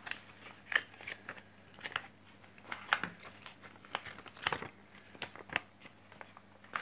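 A folded glossy paper card being unfolded and handled, with irregular rustles, crinkles and small paper clicks.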